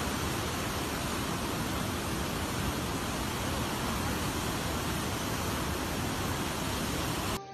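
Fast-flowing muddy floodwater rushing and churning through standing waves, a steady even rush of water noise that cuts off abruptly at the very end.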